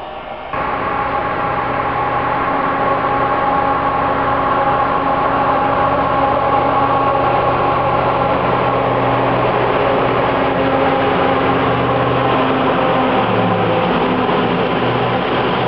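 Diesel locomotive hauling a freight train as it approaches and comes alongside, its engine running with a steady hum that grows slightly louder. Near the end the engine's low tones drop in pitch as it draws level.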